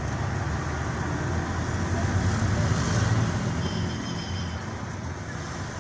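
Steady low engine and road rumble heard from inside the cab of a vehicle driving through town traffic.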